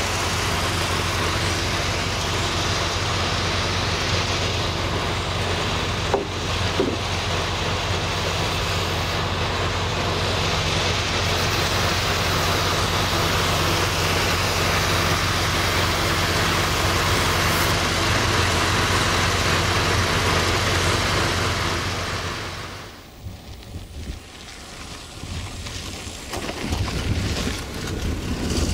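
A large engine of construction machinery running steadily at constant speed, a low even hum with road-traffic-like noise. About 23 seconds in it gives way abruptly to quieter outdoor noise, which swells again near the end.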